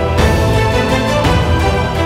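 Cinematic trailer music: a sustained low drone under layered held notes, with percussion hits about once a second.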